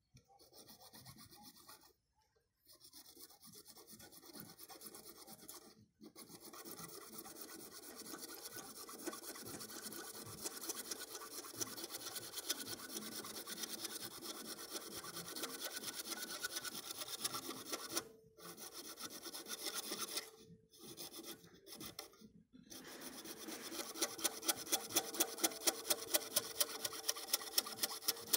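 A hand blade scraping back and forth on a grey PVC pipe fitting in quick strokes, with a few short pauses. Near the end the strokes get louder and settle into a regular pace of about three a second.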